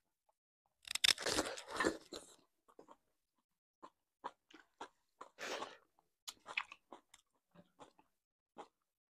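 Close-miked eating: a loud crunchy bite and chewing about a second in, another crunchy bite in the middle, and short wet mouth clicks and smacks between them.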